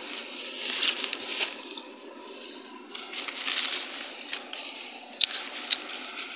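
Plastic bags crinkling and rustling as they are handled, with a couple of sharp clicks near the end, over the steady rush of a stream.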